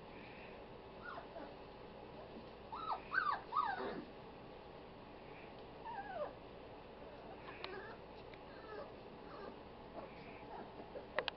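Litter of five-week-old puppies whimpering and yipping in short high cries, with the loudest flurry about three seconds in, another about six seconds in, and fainter whines between. A few sharp clicks just before the end.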